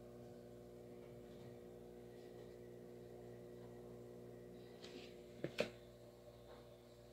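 Near silence with a faint steady hum, and a couple of small clicks about five and a half seconds in.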